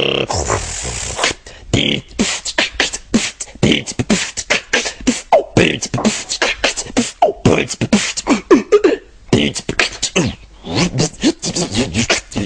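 Mouth-made drum break: fast beatboxed kick, snare, clap and hi-hat sounds interleaved with short sung bass and synth notes. It opens with about a second of steady hiss before the rapid beat starts.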